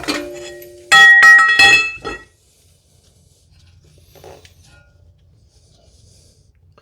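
Metal parts or tools clanking together with a bright, ringing clink: one strike right at the start, then a quick run of several ringing strikes from about one to two seconds in.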